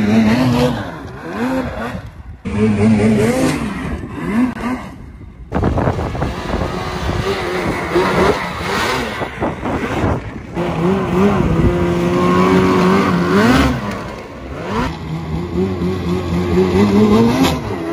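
Snowmobile engines revving, their pitch rising and falling again and again, in several short stretches that break off abruptly.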